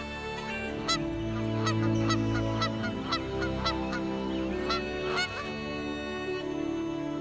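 A flock of geese honking in flight, a run of short calls between about one and five seconds in, over sustained orchestral music.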